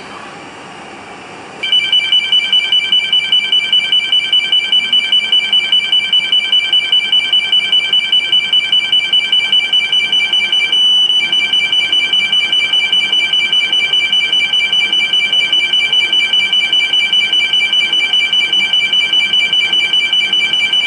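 Hanwei BX616 portable four-gas detector sounding its gas alarm: a loud, high-pitched beep repeated several times a second, starting about two seconds in and pausing briefly midway. It is set off by the 500 ppm standard test gas fed into the sensor.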